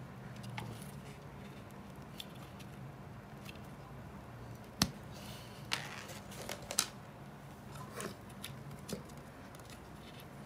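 Small clicks and taps of fluted wooden dowels being pushed and twisted into the holes of a particleboard furniture panel, with one sharper click about five seconds in and a few more after it. A faint steady low hum runs underneath.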